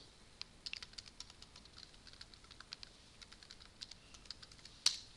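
Computer keyboard typing: a run of quick, irregular keystrokes, with one louder click near the end.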